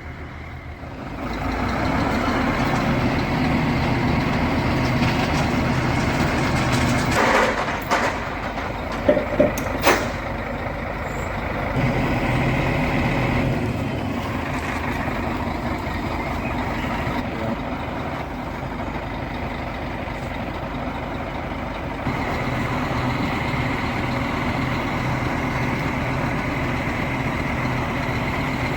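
A large engine running steadily, with several sharp knocks and clanks about a third of the way in.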